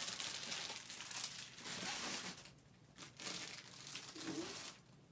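Tissue-paper wrapping crinkling and rustling as hands rummage through a gift box and lift items out, in two spells with a short break about halfway.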